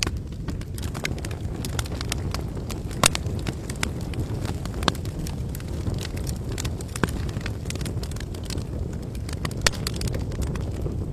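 Wood campfire burning: a steady low rush of flames with scattered crackles and four louder sharp pops spread through it.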